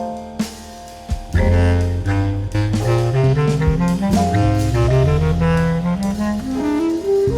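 Small jazz band playing live: a reed lead over piano, a low bass line and drums. After a brief quieter moment the full band comes back in about a second in, and a melodic line climbs step by step toward the end.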